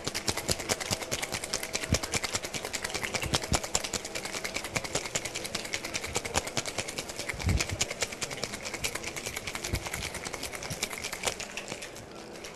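Ice rattling fast and hard inside a cocktail shaker worked in the Japanese hard-shake style, a rapid, even clatter of many cubes striking the metal. It eases off just before the end.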